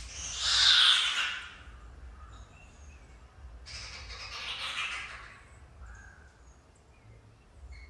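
Birds calling: two long, harsh squawking calls, the first right at the start and the second about four seconds in, with short faint chirps from small birds in between.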